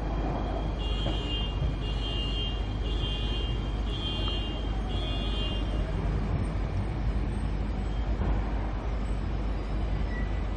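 Queensland Rail electric Tilt Train rolling slowly into the platform, a steady low rumble. In the first half a high beeping tone sounds five times, about once a second.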